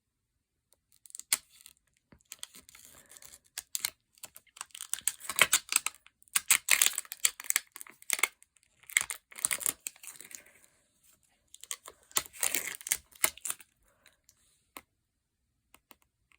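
Plastic packaging being torn and crinkled in irregular bursts while a slime container is pried open.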